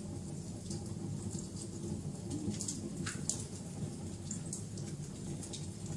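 Wood fire crackling: irregular sharp pops and snaps over a steady low rumble of the burning fire.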